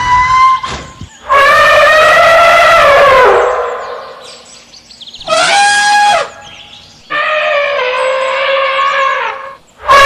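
A series of loud animal calls, four in all, each held for one to two seconds with short gaps between. The first call falls in pitch at its end.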